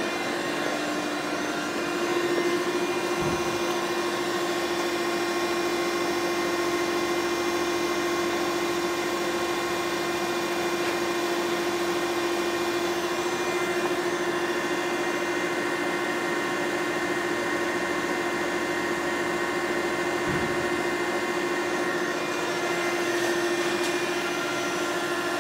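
Okamoto 12 x 24 surface grinder running, its motors giving a steady whirring hum with a held tone.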